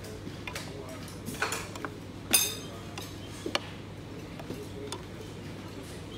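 Metal spoon stirring a drink in a plastic cup, giving a handful of light clicks and clinks against the cup, with one louder ringing clink about two and a half seconds in. A steady low hum runs underneath.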